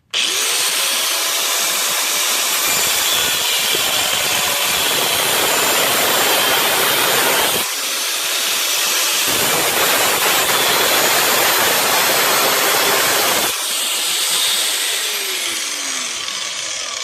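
A power tool's abrasive cutoff wheel grinding through a 2.5-inch exhaust pipe elbow: a loud, continuous grinding hiss that starts abruptly. It eases off briefly twice as the cut goes on.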